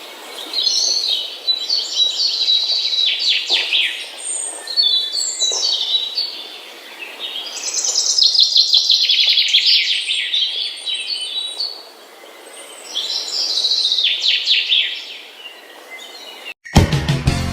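Bird song: rapid chirps and descending trills in repeated phrases a few seconds long, with short lulls between them. Music cuts in near the end.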